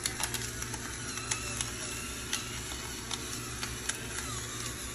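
Electric pepper grinder running, its small motor whirring while peppercorns crack with many irregular sharp clicks.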